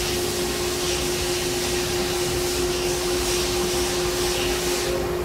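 Steady drone of a Citizen Swiss-type CNC lathe running idle, its pumps and fans giving an even hiss with a constant mid-pitched hum.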